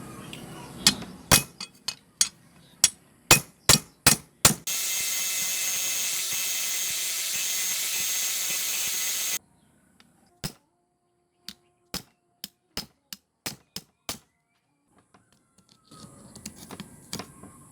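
Workshop tool sounds: a quick run of sharp knocks and clicks, then a steady hissing noise of about five seconds that cuts off suddenly, then single clicks at intervals.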